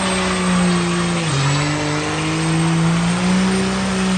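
A truck engine held at high revs during a burnout, with the hiss and squeal of spinning tires. The pitch sags once about a second in, then slowly climbs back.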